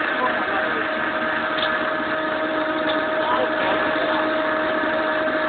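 Machine tools running steadily in a machining workshop: an even mechanical hum with a constant tone and a few faint ticks.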